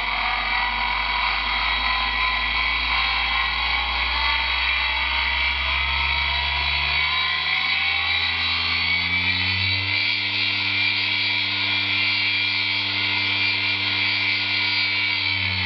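Small three-phase induction motor run from a ZW-BT1 frequency inverter, speeding up. Its hum rises in pitch over the first ten seconds or so as the drive frequency is raised from 50 to 100 Hz, holds, then starts to drop near the end. A steady high-pitched electrical whine from the inverter-fed motor runs under it.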